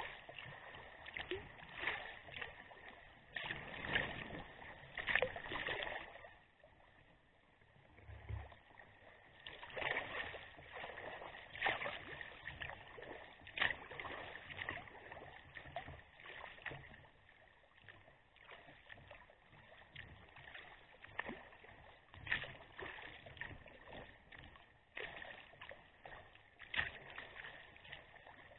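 Sea kayak paddle strokes dipping and splashing, about one a second, with water lapping along the hull; the strokes ease off for a few seconds about a quarter of the way in.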